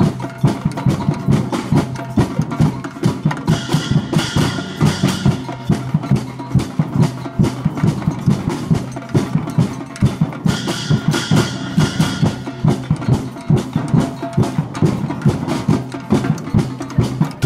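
A drum group playing a fast, steady rhythm together with sticks on large metal-shelled bass drums and smaller drums. A brighter, higher layer joins for about two seconds, twice.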